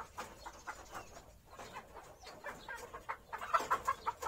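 Barnyard fowl calling: a steady run of short, soft clucks, louder near the end.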